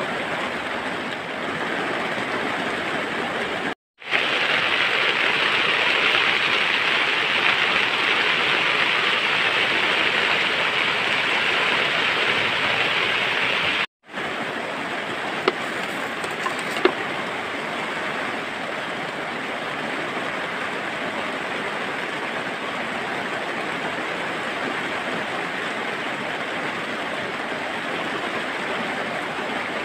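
Steady rushing hiss like falling rain. It drops out twice for a moment, about four and fourteen seconds in, with two faint clicks shortly after the second dropout.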